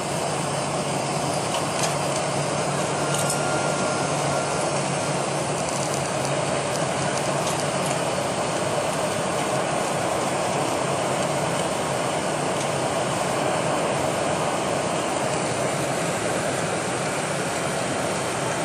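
Steady cabin noise of a Boeing 747-400 from a window seat by the wing: the hum of its GE CF6-80C2 turbofans mixed with the rush of air over the fuselage, as the jet descends toward landing. A few faint clicks or rattles sound in the first several seconds.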